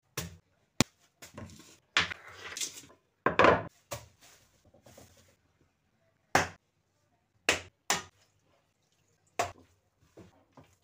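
Kitchenware knocking and clattering against a stone countertop and a glazed clay dish: about a dozen sharp knocks at irregular intervals. Some are followed by brief scraping or rustling as flour and dough are handled in the dish.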